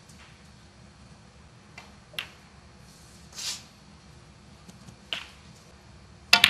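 Snooker balls clicking sharply a few times over a quiet arena hush, with a brief hiss near the middle. Near the end a louder, quick run of clicks comes as the cue tip strikes the cue ball for the next shot.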